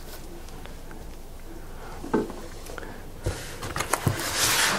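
White foam packing being handled inside a large cardboard box: a few clicks and knocks, then rustling and scraping that grows louder near the end. There is a single short thump about two seconds in.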